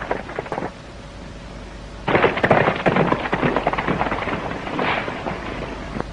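Horses galloping away, a rapid clatter of hoofbeats on a dirt road. It breaks off less than a second in, comes back louder about two seconds in, and fades toward the end.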